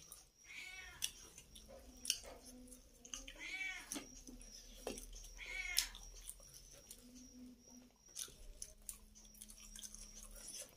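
A domestic cat meowing three times, each a short high call that rises and falls, with faint clicks and taps between.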